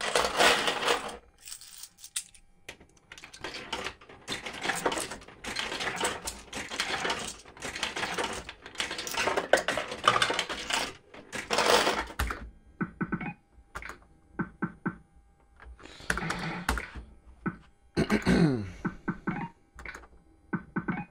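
Bully for You fruit machine playing its electronic game sounds: a run of noisy bursts for about the first twelve seconds, then quick clicks over a steady tone, with a falling sweep near the end.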